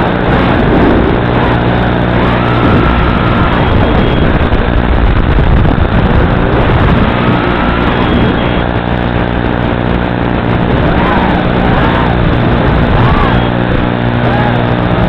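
Brushless motors and propellers of a 240 mm FPV racing quadcopter running in flight: a steady buzz with whines that rise and fall in pitch as the throttle changes, several times in the second half.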